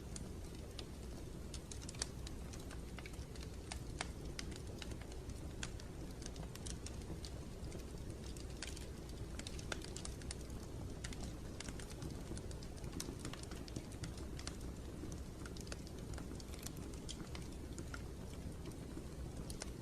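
A steady low rumbling noise with many light, irregular clicks and taps scattered over it.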